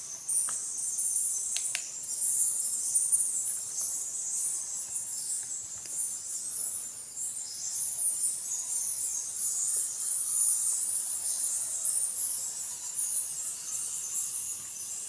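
A bat colony roosting in a cave, giving a continuous high-pitched chattering and squeaking, with a few faint knocks in the first two seconds.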